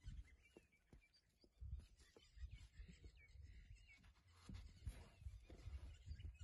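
Faint scratching and a scatter of soft knocks from a baby albino elephant's trunk rummaging in loose sand.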